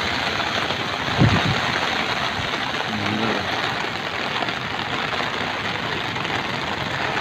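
Steady hiss of heavy rain and rushing floodwater, with one short low thump about a second in.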